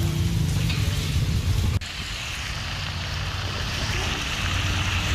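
A vehicle engine running with a steady low rumble under the hiss of heavy rain on floodwater. A little under two seconds in the sound breaks off abruptly, then resumes with the rain hiss brighter over a lower engine hum.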